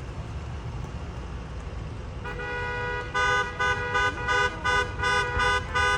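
Low traffic rumble, then about two seconds in a bus's multi-tone musical air horn (a 'telolet' horn) sounds a chord of several notes at once. From about three seconds in the chord pulses in short blasts, two to three a second.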